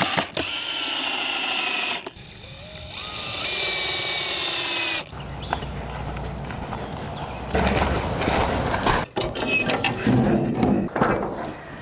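Power drill driving screws through the wooden stakes into the concrete form, in several runs of a few seconds each with short pauses between.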